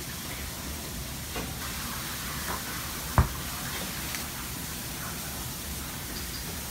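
A pizza wheel cutter rolling through a baked pizza crust on a wooden board, making a few faint crunches over a steady kitchen hiss, with one sharp knock about three seconds in.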